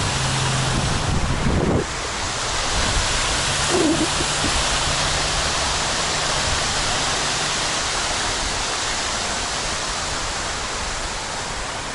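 Waterfall: water pouring and splashing, a steady rushing hiss. A low hum sits under it for the first two seconds or so, then stops.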